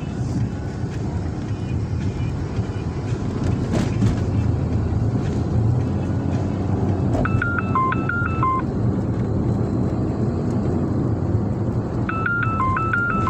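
Steady engine and tyre rumble inside a moving car's cabin. A mobile phone ringtone, a short melody of stepped notes, plays about seven seconds in and again near the end: an incoming call.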